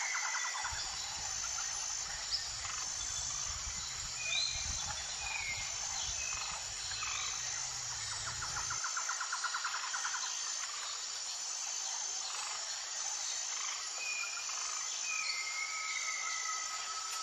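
Outdoor nature ambience: insects trilling in fast pulses, with a high chirp repeating about once a second, and short sliding bird chirps scattered throughout. A low rumble lies underneath and cuts off about nine seconds in.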